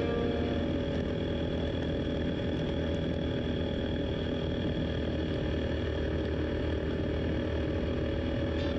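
Yamaha SZ 150 motorcycle engine running steadily while riding, mixed with wind and road noise.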